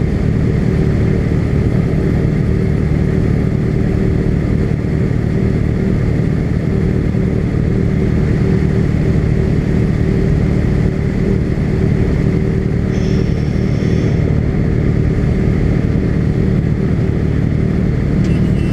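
Honda CB300 motorcycle's single-cylinder engine running steadily while being ridden, at an even, loud level. A brief high tone sounds about thirteen seconds in.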